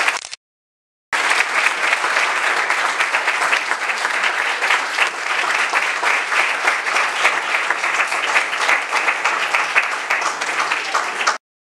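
Audience applauding: dense, steady clapping from many hands. It drops out for a moment shortly after the start, resumes, and cuts off abruptly near the end.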